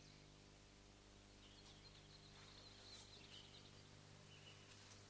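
Near silence: a faint steady hum with a few faint bird chirps.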